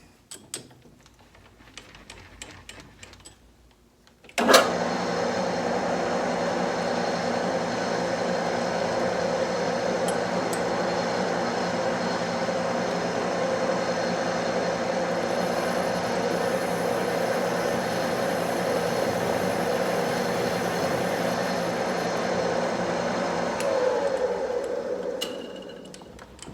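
Metal lathe switched on about four seconds in with a sharp click, its motor and spindle running steadily while it turns a chamfer on the edge of a small metal coupler; near the end it is switched off and winds down.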